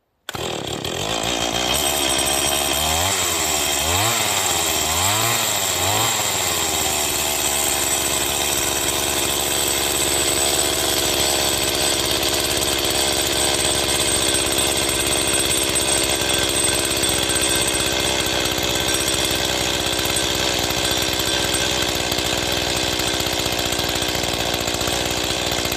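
Stihl MS 180 two-stroke chainsaw running: revved four times in quick succession about a second apart a few seconds in, then running steadily at an even speed.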